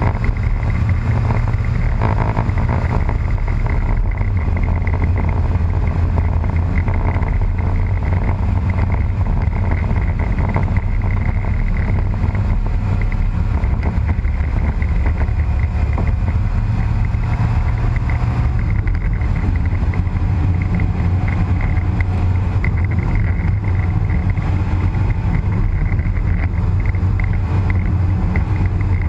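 Fiat Panda 4x4 driving on a snow-covered road: engine running at a steady pace with a deep, even drone and tyre and road noise.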